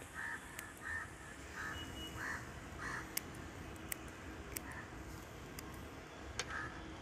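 A crow cawing in a quick run of short calls about every 0.7 seconds, then a couple more calls further apart, with a few faint sharp clicks in between.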